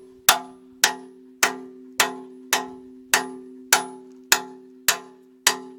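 A hammer striking a bushing driver at a steady pace, about ten blows in under six seconds, driving a steel pin bushing into a backhoe bucket's pin bore. Each blow is a sharp metallic clank that leaves the steel ringing.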